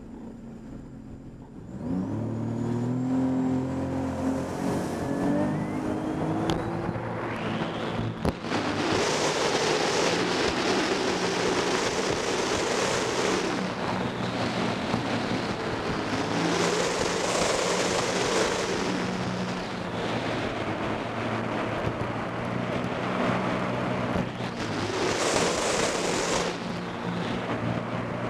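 Personal watercraft engine pulling away from a low idle about two seconds in, its pitch rising over a few seconds, then running at speed under a broad rush of water and wind that swells louder three times.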